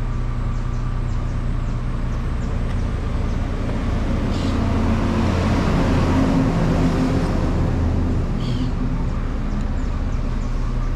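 Road traffic: a steady low hum, with a vehicle passing and swelling louder through the middle, then fading.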